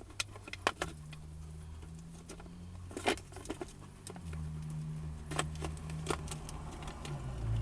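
Scattered light clicks and rattles of small parts being handled, the OBD-II connector and its plastic mount, over a steady low hum.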